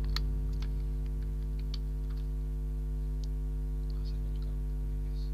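Steady electrical mains hum with a handful of short, faint clicks scattered through it.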